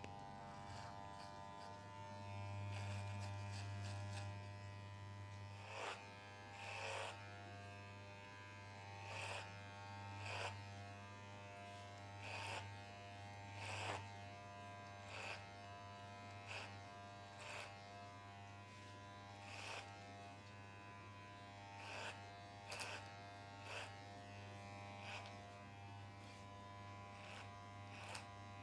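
Handheld electric barber's tool buzzing steadily, with a low hum under it. Brief louder rasps, as it passes over hair or skin, come roughly once a second through the middle of the stretch.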